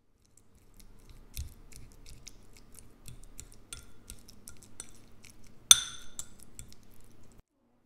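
Metal fork mashing cooked pumpkin in a ceramic bowl: a run of quick clinks and taps of the tines against the bowl, with one loud clink about three-quarters of the way through. It cuts off suddenly near the end.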